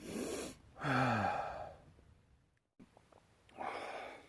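A man's breathy exhale followed by a long, falling, voiced sigh, then another breathy exhale near the end.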